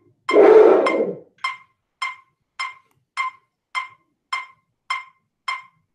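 Metronome ticking steadily at about 100 beats a minute, about ten ticks. Near the start comes one loud rush of breath lasting about a second, drawn or pushed with a hand held at the mouth, as part of a two-count in, twelve-count out breathing exercise for wind players.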